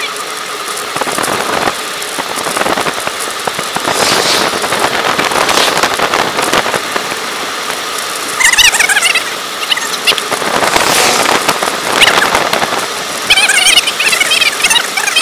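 Wind rushing over the microphone and tyre noise from a road bike riding on a wet road, with bursts of high, wavering squeaky chirps about halfway through and again near the end.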